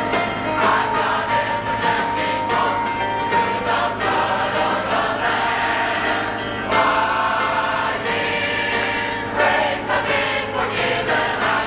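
Large mixed choir of men and women singing a gospel song.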